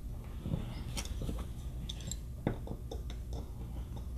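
Faint handling sounds of fingers seating twisted-pair wires into the slots of a plastic keystone jack: light rustling with a few small scattered clicks and ticks.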